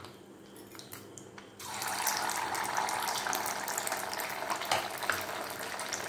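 A piece of chhena (fresh cheese) dough frying in hot ghee. The sizzling starts suddenly about a second and a half in and carries on steadily, with light crackles.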